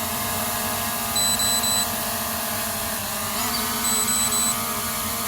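SJRC F11S 4K Pro drone hovering and coming in to land, its propellers giving a steady hum of several tones that wavers briefly about three seconds in. Twice, a group of three short high-pitched beeps sounds: the low-battery warning.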